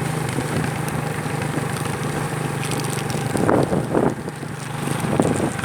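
Vehicle engine running steadily with wind rushing past while riding, and a brief louder patch of noise about three and a half seconds in.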